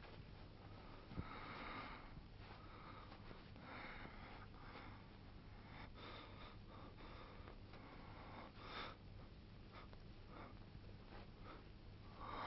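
Near silence: faint room tone with a steady low hum, soft breathy rustles and a single sharp click about a second in.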